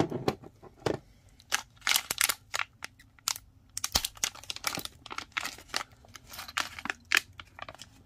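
Foil blind-bag packaging crinkling and crackling as it is torn open and handled by hand, a run of irregular sharp crinkles.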